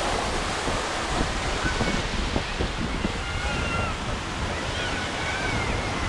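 Atlantic surf washing steadily onto the beach, with wind buffeting the microphone in low gusts.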